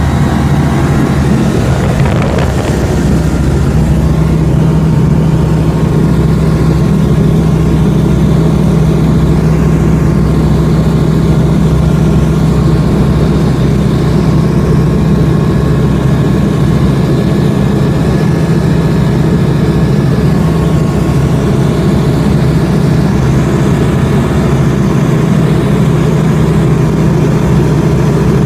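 Single-engine ultralight aircraft's engine and propeller droning steadily in flight, heard from inside the cockpit.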